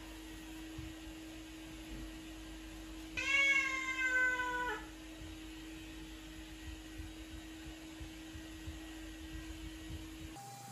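Domestic cat giving one long meow, about a second and a half, a little over three seconds in; its pitch sags toward the end.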